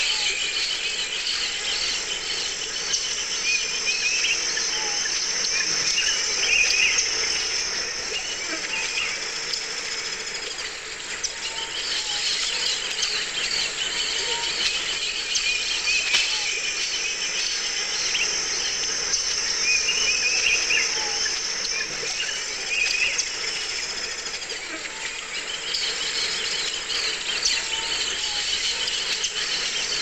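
Dense tropical jungle ambience: a steady, high-pitched chorus of insects with bird chirps breaking in every few seconds.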